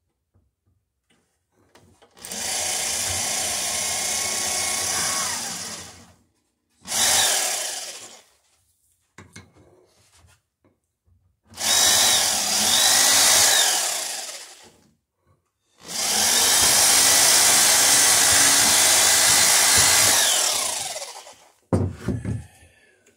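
Electric drill boring rivet holes through the lapped wooden planks of a dory hull, run in four bursts of a few seconds each, its pitch falling as it spins down at the end of a run. A few low knocks near the end.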